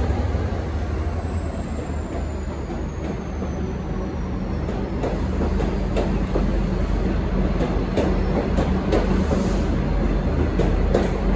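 V/Line N-class diesel-hauled train rolling through the station: a steady low rumble with a faint high whine falling in pitch over the first few seconds, then wheel clicks over rail joints growing more frequent in the second half.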